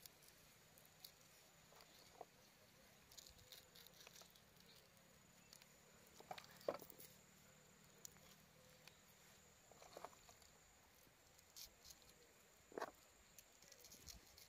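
Near silence, broken by faint scattered clicks and taps and a few brief faint chirps.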